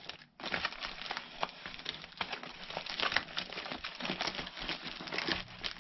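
Woven polypropylene sack, tarp-like bird-seed-bag material, crinkling and rustling as hands handle it and work at the string tied round its neck: a dense run of small crackles, broken by a moment's silence just after the start.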